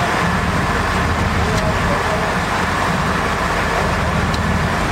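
Sportfishing boat's engine running steadily under way, with the rush of wind and water over it.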